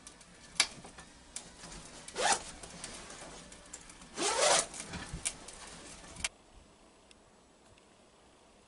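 Zipper on heavy blaze-orange hunting coveralls being pulled open as they are taken off: two rasping pulls about two seconds apart, the second longer and rising in pitch, among clicks and rustles of the clothing.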